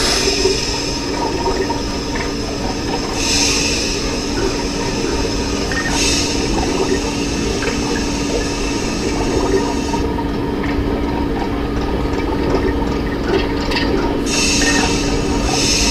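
Machine-room sound effects: a steady rumble under a constant low hum, with small scattered clicks and knocks and running, gurgling water. Short bursts of hissing come about three and six seconds in and again near the end.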